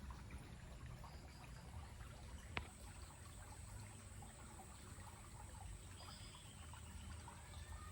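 Faint trickle of a small stream's flowing water, with a single sharp click about two and a half seconds in.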